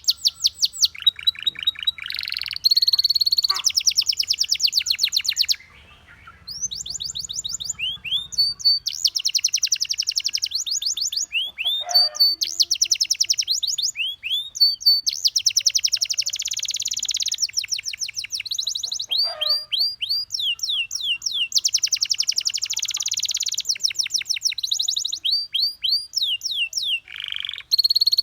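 Domestic canary singing: long rapid trills of quickly repeated high notes, with a brief pause about six seconds in.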